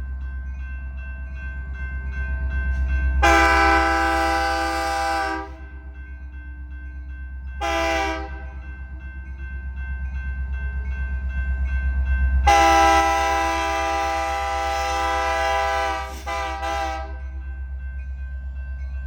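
Diesel locomotive air horn on an EMD SD70MAC sounding a chord in blasts: a long one, a short one, then another long one, in the pattern of a grade-crossing signal. Under the horn runs the steady low throb of the idling diesel engines.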